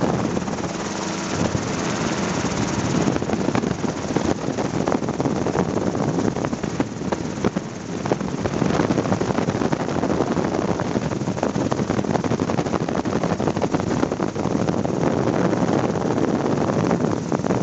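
Helicopter engine and rotor running steadily, heard from inside the cabin as the helicopter climbs and flies low over the town.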